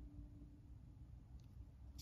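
Near silence: low room tone with a steady hum, and a couple of faint clicks near the end.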